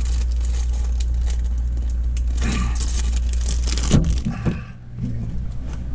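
Clinking and rattling of kitchen items being handled, over a steady low hum, with a sharper knock about four seconds in.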